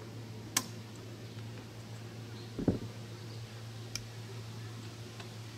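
Snap-ring clips being worked onto the metal mounting pins of an antenna mount: a sharp click about half a second in, a duller knock near the middle and a lighter click about four seconds in, over a steady low hum.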